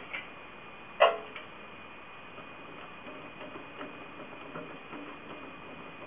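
Light clicks and ticks of wires and metal parts being handled on a homemade maypole braider, with one short, sharp, louder sound about a second in. A faint steady high whine runs underneath.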